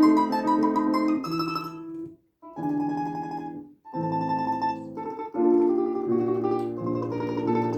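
Solo instrumental music: a melody in separate notes with chords beneath. The phrases break off into two short silences, about two and four seconds in.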